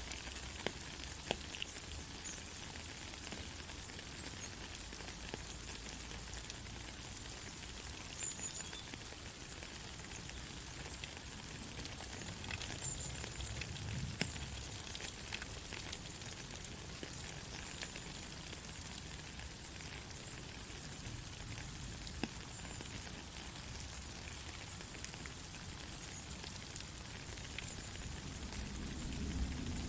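Steady rain falling: an even hiss with many scattered sharp taps of drops striking nearby surfaces.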